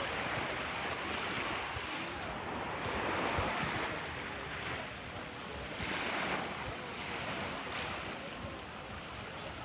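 Small waves washing onto a sandy beach, swelling and fading every few seconds, with wind buffeting the microphone.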